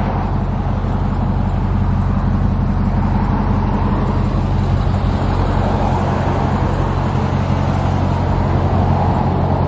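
Truck engine running steadily at one even pitch, with no revving.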